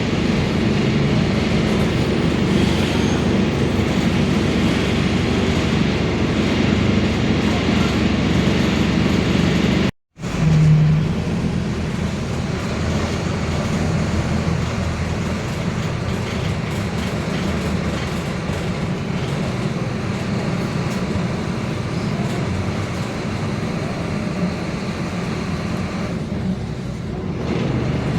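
Mercedes-Benz OF-1721 BlueTec 5 city bus driving, its front-mounted four-cylinder diesel and drivetrain running steadily with a low growl from the differential. The sound cuts out for a split second about a third of the way in.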